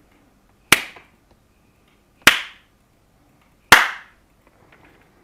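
Three brief, sharp sounds, evenly spaced about a second and a half apart, each with a short tail. They are test sounds made for a speed-of-sound measurement.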